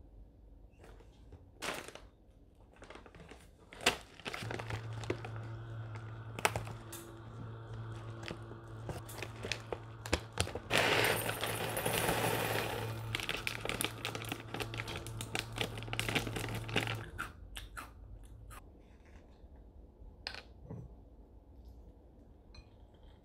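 Plastic cereal bag crinkling and rustling as it is handled and opened, then cereal poured from the bag into a ceramic bowl in a dense rattling rush for about two seconds, starting about eleven seconds in. Scattered lighter crinkles and taps follow.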